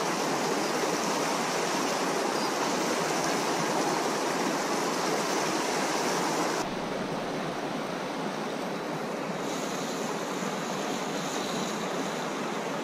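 Steady rush of flowing river water, with no distinct events. It drops abruptly to a slightly quieter rush about six and a half seconds in.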